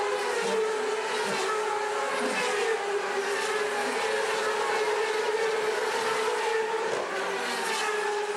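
CART Indy cars' turbocharged V8 engines running at racing speed on the restart, heard from the grandstand as a steady, high engine note.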